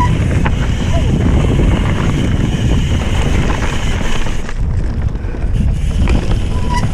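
Wind rushing over the microphone and the rumble of mountain bike tyres rolling fast over a rocky gravel trail, with a few short clicks and rattles from the bike.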